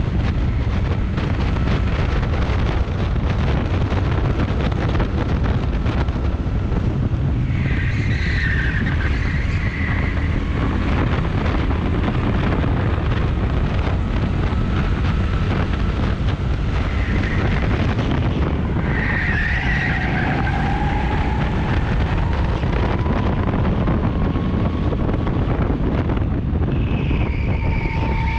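Rental go-kart running at race speed, heard from onboard under heavy wind noise on the microphone, with several short tyre squeals as the kart corners.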